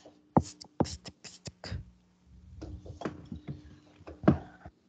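A quick run of short, sharp clicks and taps over a video-call line, with a faint steady hum underneath; a few more clicks come near the end.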